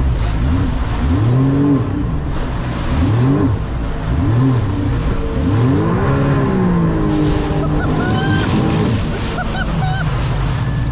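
Sea-Doo jet ski engine revving up and down over and over, its pitch rising and falling about every second or two as the throttle is worked, over a steady rush of wind and water.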